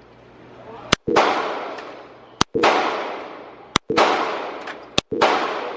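Four gunshots, one every second and a half or so, each followed by a long echoing tail that dies away before the next.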